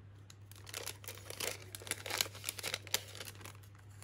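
Paper packets and wrapping rustling and crinkling as they are handled, a run of short crackles that dies away near the end.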